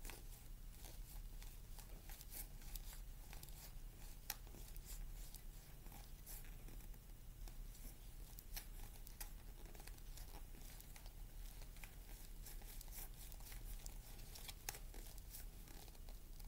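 Faint papery clicks and rustles of a tarot deck being shuffled and handled, with a steady low hum underneath.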